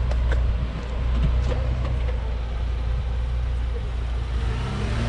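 Chevrolet Colorado ZR2 pickup's engine running steadily at low revs as the truck crawls over rock, with scattered small ticks and clicks; the revs begin to rise near the end.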